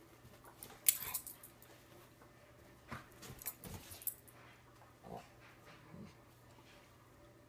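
Two dogs play-wrestling: a few short play growls and mouthing and scuffling noises, the sharpest and loudest about a second in, the last two short and low near the end.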